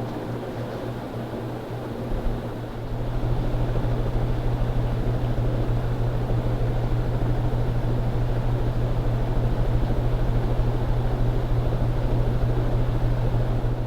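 Cast-iron Hunter Original ceiling fan motor running with a steady low hum and the whoosh of its blades; it gets louder about three seconds in and then holds steady.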